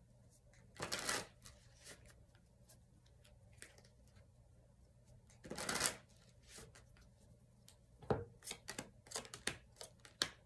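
Tarot cards being handled: two short swishes of the cards, about a second in and again about six seconds in, then a run of small taps and clicks near the end.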